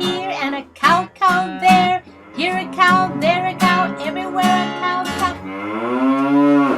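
Sung children's song over strummed acoustic guitar, ending in one long held note that rises and then falls.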